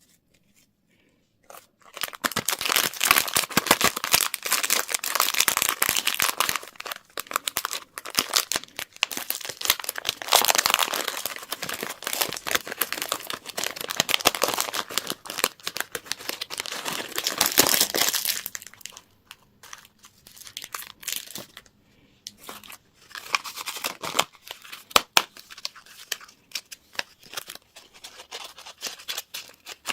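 Crinkly wrapper being torn open and crumpled by hand: dense crackling from about two seconds in, thinning to sparser rustles after about eighteen seconds.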